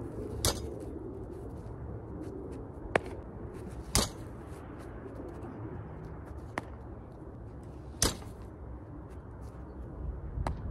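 A baseball smacks into a steel-framed rebound net and pops back up as a fly ball, then is caught in a glove, in a repeating cycle of sharp impacts: three loud hits about four seconds apart, with a fainter one a couple of seconds after each. A steady low rumble runs underneath.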